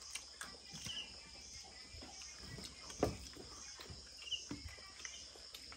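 Insects, crickets by their sound, trilling steadily in a high pitch with an even pulsing, and a few faint short chirps. Scattered light clicks and knocks of people eating from metal bowls, the loudest about three seconds in.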